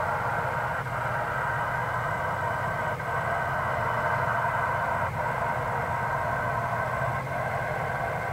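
Steady, unbroken roar of a shallow gas well blowout jetting and burning, heard from a distance, with a faint tick about every two seconds.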